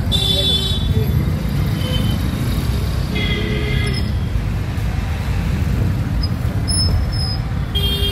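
Steady road-traffic rumble of passing cars and two-wheelers on a wet street, with three short flat-pitched horn beeps: one at the start, one about three seconds in, and one near the end.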